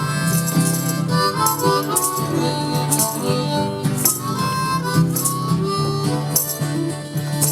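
Harmonica playing a quick Irish jig melody of fast, changing notes over a steady low backing, with a bright beat recurring about once a second.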